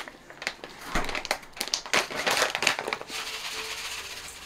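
A sesame-seed package crinkling as it is handled and opened, several rustling strokes over the first three seconds. It then goes quieter as the sesame seeds are poured into a stainless mixing bowl.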